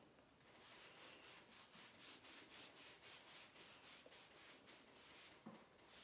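Faint rapid rubbing, about four strokes a second, of a fingertip working pressed powder eyeshadow while swatching.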